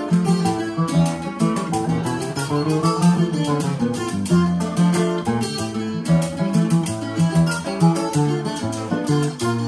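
A Puerto Rican cuatro playing a plucked melody over strummed acoustic guitar chords, with maracas shaken in a steady rhythm.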